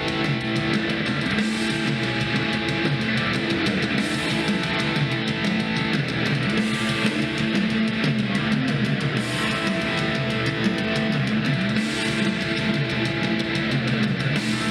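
Guitar-driven rock music played steadily through Creative Pebble Plus 2.1 USB-powered desktop speakers as a sound test.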